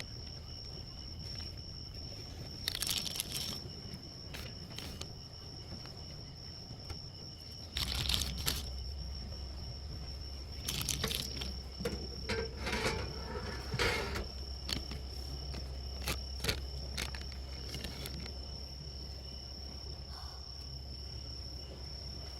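Crickets chirping in a steady, high-pitched night chorus, with intermittent rustling, crinkling and clicks from handled packaging or gear. A low steady hum comes in about eight seconds in.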